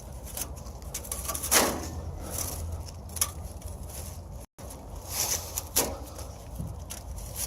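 Scattered knocks and scrapes over a low steady hum, with the sound dropping out for an instant about four and a half seconds in.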